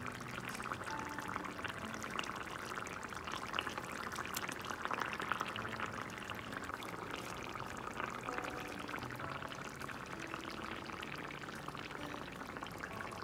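Chicken curry gravy simmering in a kadai: a steady, fine crackle of bubbling sauce, with cream just added.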